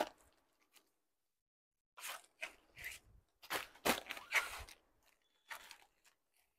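Rustling and crinkling as a folded saree is opened out and handled, in a run of short bursts starting about two seconds in, with one more near the end.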